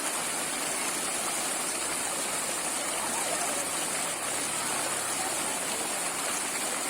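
Water flowing in a stream, a steady rushing without break.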